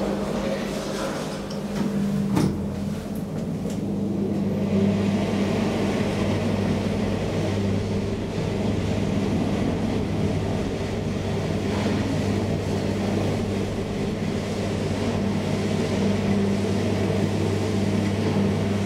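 Traction elevator car closing its doors with a knock about two seconds in, then travelling between floors with a steady low motor hum and running noise.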